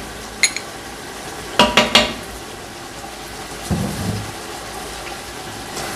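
Wooden spoon stirring a simmering curry of meat and potatoes in an aluminium pot, over a steady bubbling sizzle. A few sharp knocks of utensils sound, the loudest two close together about two seconds in, and a dull thump comes about four seconds in.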